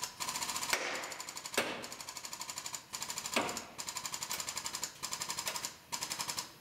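Air-powered shop tool on a frame-straightening rack chattering in rapid bursts of about ten strokes a second, stopping and starting roughly every second.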